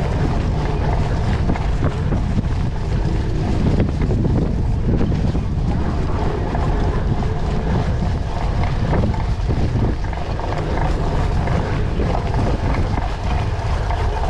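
Wind buffeting the microphone while a cyclocross bike is ridden over dirt and sand, with a steady low rumble from the tyres and the rough ground.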